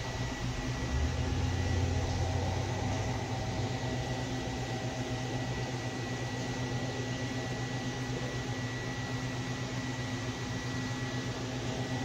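Steady electrical hum of running aquarium equipment such as pumps and filters, with a low mains-like drone and a faint high whine over an even hiss.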